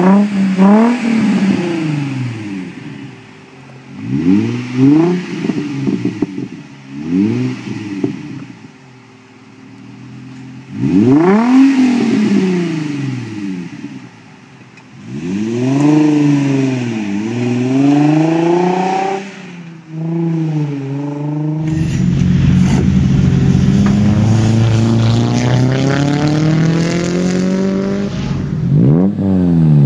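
A 2004 Nissan 350Z's 3.5-litre V6 through an Invidia N1 exhaust, revved in a series of blips and a few longer revs, its pitch rising and falling each time. About twenty seconds in, a Nissan 200SX S14a's engine takes over, running continuously with its pitch slowly climbing, and gives one more sharp rev near the end.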